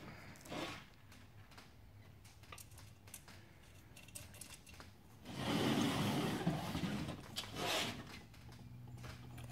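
Faint small metal clicks of washers and nuts being handled and started on screws. About five seconds in, a louder rustle and scrape for about two seconds, with a shorter one after it, as the fabric-covered folding stool is turned around on the table.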